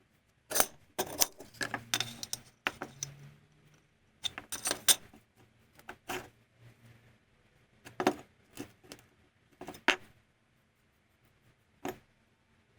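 Irregular metallic clinks and knocks of small steel parts being handled and set down on a hard surface, in short clusters with pauses between, the last a single clink near the end.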